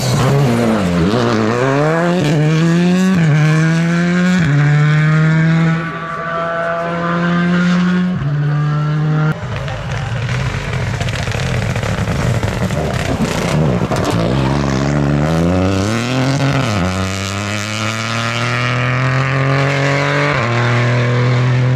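A rally car's engine accelerating hard through the gears, its pitch climbing and dropping back at each shift. It eases off partway through, then accelerates through the gears again.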